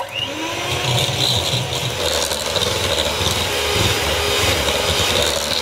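Handheld electric mixer with twin beaters running steadily at speed, creaming egg yolks and sugar in a bowl.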